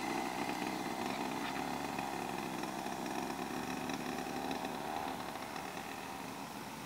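Small engine of a child's quad bike running steadily as it rides, fading gradually as the quad moves farther off.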